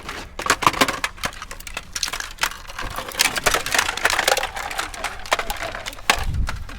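Hard plastic electronics, such as modems and a phone, being picked up and handled, with a rapid irregular clatter of clicks and knocks and some rustling.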